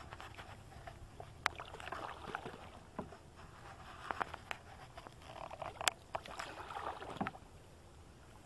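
Canoe paddle strokes swishing through the water several times, with a few sharp knocks in between.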